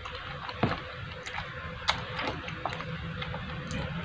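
Close-miked chewing of eel: a scattered run of soft mouth clicks and smacks, several a second, between bites.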